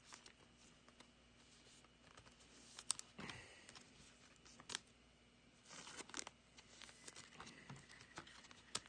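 Faint crinkling of thin clear plastic card sleeves as trading cards are slid into them, with a few light clicks and taps as sleeved cards are set down on the table.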